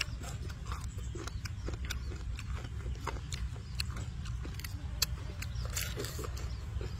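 Close-up chewing of fried chicken: wet, open-mouthed smacking and crunching in quick irregular clicks, with one sharper click about five seconds in. A steady low rumble runs underneath.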